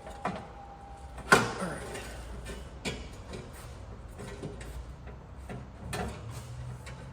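Scattered metal clanks and knocks from work on a truck's exhaust. The loudest comes about a second in and rings briefly, with a few lighter knocks after it.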